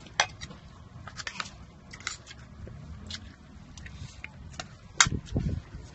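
Eating noises: chewing, with a spoon clicking against plates now and then and a few soft knocks about five seconds in.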